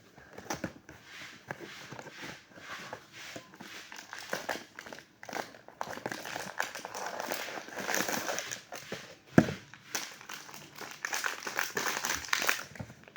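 Plastic blind-box packaging being crinkled and torn open by hand: continuous irregular crackling, with one sharp knock about nine seconds in.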